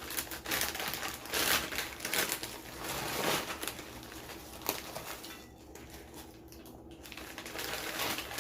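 Bag of Lay's Classic potato chips crinkling and rustling as it is handled, in irregular crackles that ease off in the second half.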